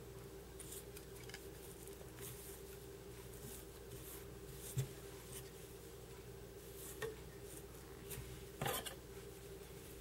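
Faint rustling and a few small clicks from hands handling thread and bucktail on a hook in a fly-tying vise, over a steady faint hum. A sharp click comes about halfway through, and a brief rustle near the end.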